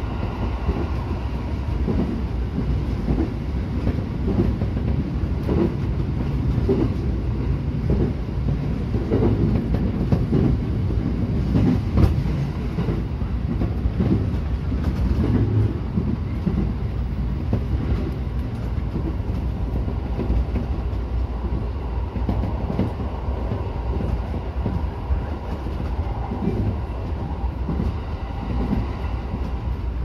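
E231 series electric commuter train running along the track, heard from inside the driver's cab: steady rumbling running noise with irregular clacks of the wheels over the rails, and one sharper knock about twelve seconds in.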